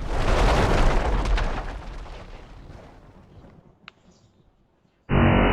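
Explosion-like blast sound effect: a loud rumbling burst that swells in the first second and fades over about three seconds, followed by a single sharp click near four seconds in. A distorted, muffled music track starts abruptly near the end.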